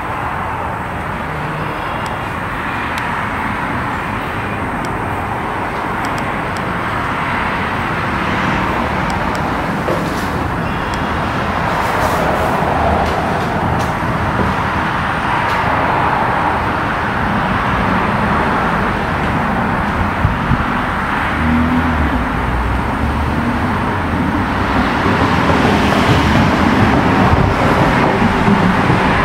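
Heavy rain falling, a steady rushing hiss that slowly grows louder.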